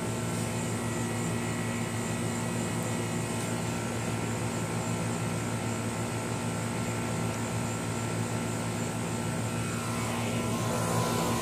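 Outdoor air-conditioning condenser unit running: a constant mechanical drone made of several steady tones, growing a little louder near the end.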